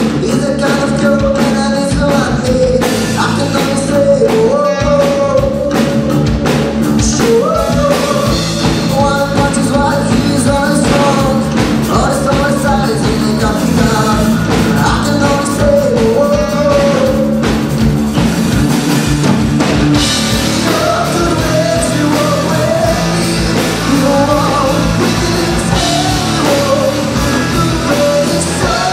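Alternative rock band playing live: a male singer over electric guitar, bass guitars and a drum kit.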